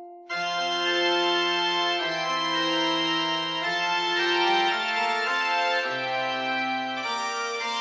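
Background music of sustained keyboard chords, organ-like, with the notes changing about once a second; a new passage starts a moment in after a brief dip.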